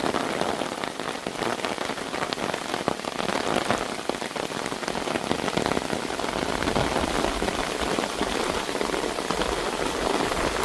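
Heavy rain falling steadily, dense with the ticks of individual drops striking close by. From about the middle on, a low rumble of wind on the microphone joins it.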